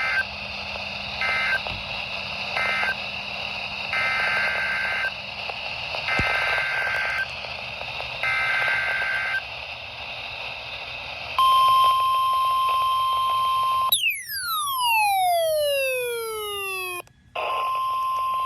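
NOAA Weather Radio alert over a weather radio receiver: three short end-of-message data bursts close the previous alert, then three longer SAME header data bursts open a severe thunderstorm warning. The steady 1050 Hz warning alarm tone follows, cut about halfway through by a falling, siren-like sweep for about three seconds before the tone resumes.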